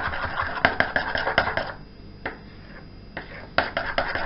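A utensil stirring a toothpaste-and-glue slime mixture in a bowl, with rapid clicking and knocking against the bowl. The stirring pauses briefly about two seconds in and picks up again near the end.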